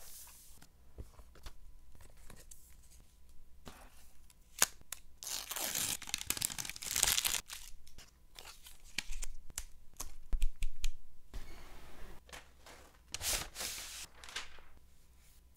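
MacBook Pro packaging being opened by hand: paper pull tabs and the laptop's paper wrap are torn and peeled, with rustling cardboard and light taps between. The two longest ripping stretches come about a third of the way in and near the end.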